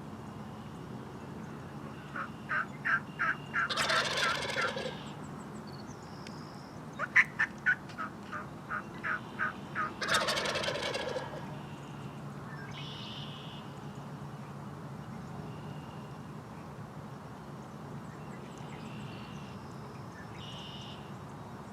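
Eastern wild turkeys calling twice: each time a run of about six short yelps leads into a loud gobble from a tom. Faint songbird notes follow.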